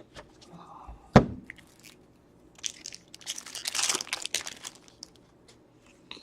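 A trading-card pack wrapper being torn open and crinkled, with a sharp knock about a second in.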